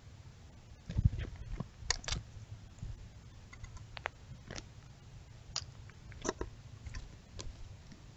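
An animal nosing at the trail camera right against the lens, making irregular sharp clicks, taps and rubbing on the camera housing, with the loudest knock about a second in.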